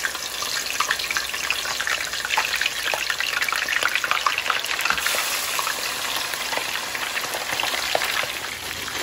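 Hot oil sizzling and crackling around whole tilapia frying in a roasting pan. The crackling grows louder and busier about four seconds in as a second fish is lowered into the oil.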